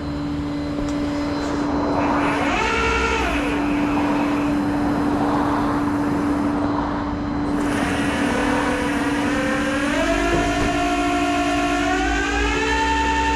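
Motor vehicle engine running with a steady hum. A whine briefly rises and falls about two and a half seconds in, and from about eight seconds a whine climbs in pitch in steps as the engine speeds up, then holds higher near the end.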